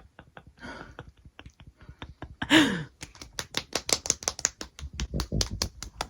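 Rapid, even clicking or tapping, about six to eight a second, louder in the second half. About two and a half seconds in, a short voiced sound slides down in pitch.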